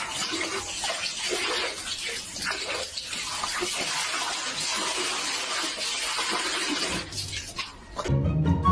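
Water running and splashing, as in a bathtub, for about eight seconds. Instrumental music starts near the end.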